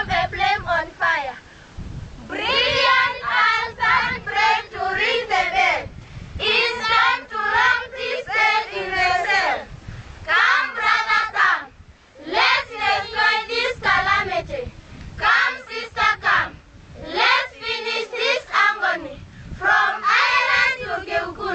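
A group of schoolchildren singing together in short phrases, with brief pauses between them.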